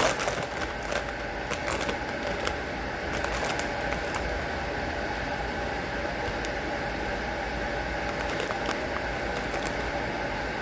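Flaming Hot Cheetos being chewed: scattered crunches, thickest in the first few seconds and sparser after, over a steady mechanical hum.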